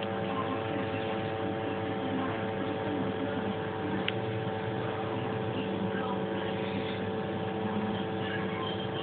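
Steady hum of several fixed tones from the powered RepRap 3D-printer electronics and energized stepper motors, with a single faint click about four seconds in.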